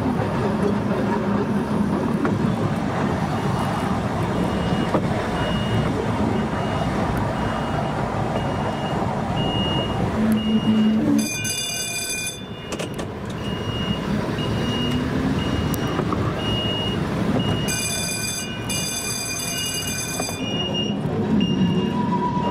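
Volk's Electric Railway car running along its narrow-gauge track, a steady rumble of motor and wheels on rail. A faint high beep repeats about every two-thirds of a second, and a loud high-pitched pulsed warning sounds twice, briefly about 11 seconds in and for about three seconds near 18 seconds.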